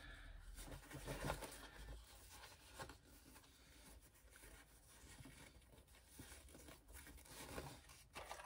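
Near silence in a small room, with faint rustles of fabric being folded and handled between the fingers.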